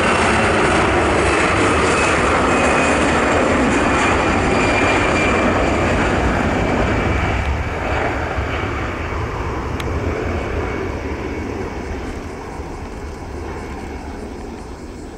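Airbus A320-214's twin CFM56-5B turbofan engines at takeoff thrust as the airliner rolls down the runway and lifts off. A loud jet roar with a faint high whine at first, fading steadily from about halfway through as the aircraft draws away.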